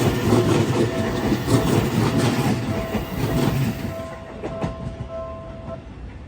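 Seibu Line electric train passing over a level crossing, its wheels clattering over the rail joints, the noise fading away from about four seconds in. A Japanese level-crossing bell rings over it in a steady repeating beat and stops shortly before the end.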